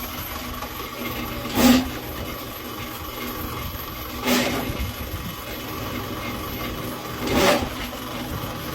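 Motorized drain-cleaning machine running steadily while clearing a clogged sewer mainline, with three louder short surges about every three seconds.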